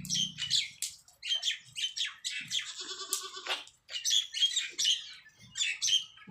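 Goats in a pen, with one goat bleating briefly about three seconds in, over continual rapid chirping of small birds.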